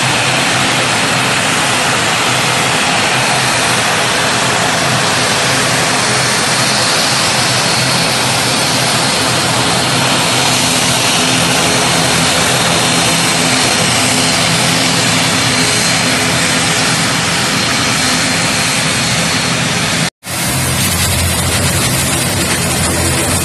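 Twin-engine turboprop airliner's engines and propellers running loudly at high power on the runway, a steady roar with a faint high whine. The sound cuts out for an instant about 20 seconds in and resumes.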